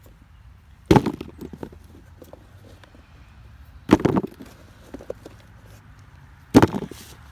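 Harvested potatoes being tipped together, three times: each pour lands as a loud knock followed by a brief rattle of potatoes tumbling against each other.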